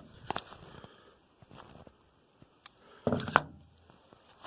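A few sharp clicks, then a louder clatter of knocks about three seconds in, from hard parts being handled.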